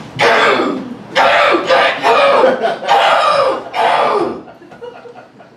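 A woman clearing her throat loudly and in an exaggerated way into a handheld microphone: a run of rasping throat-clears lasting about four seconds, then dying away.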